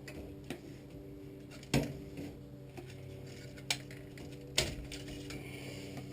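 Scattered sharp clicks and taps from small hand tools and wire terminals being handled while wiring a furnace control board, three of them louder, over a steady low hum.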